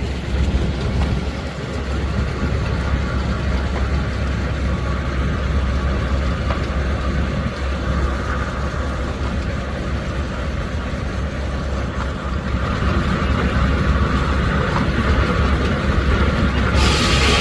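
Steam-engine-driven sawmill machinery running steadily with a deep rumble. It grows somewhat louder about two-thirds of the way in, and a louder, higher hiss joins near the end.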